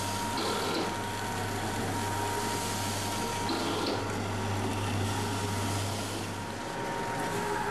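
Automatic vertical form-fill-seal salt packing machine with volumetric cup filler running: a steady low hum and a faint steady whine under a continuous hiss.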